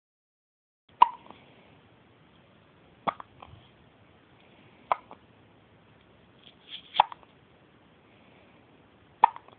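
A baby hiccuping five times, a short sharp hiccup about every two seconds.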